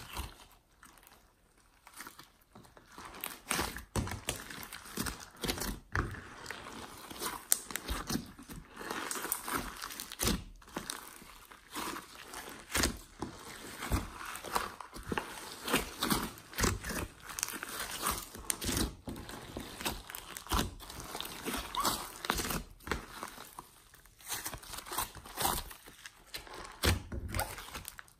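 Hands kneading and stretching glossy slime with clay and glitter mixed in: a dense stream of sticky squelches and small crackling pops, with a short pause about a second in.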